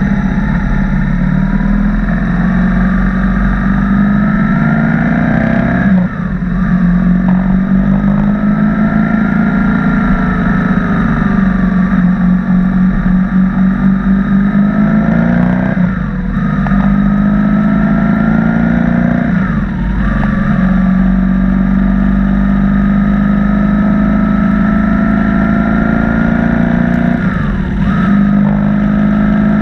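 BMW R1200 boxer-twin motorcycle engine heard while riding, its pitch rising and falling with the throttle. The revs drop briefly four times, about 6, 16, 20 and 28 seconds in, then climb again.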